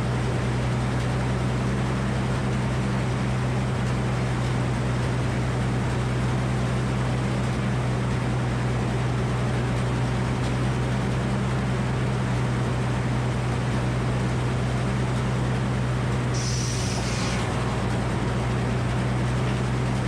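Engine powering a Frick circular sawmill, running steadily throughout. About sixteen seconds in there is a brief high-pitched sound.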